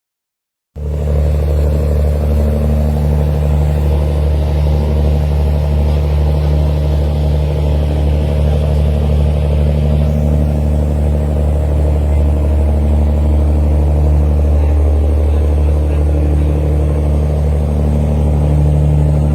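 Large boat's diesel engines running steadily under way, a loud, deep, unchanging drone.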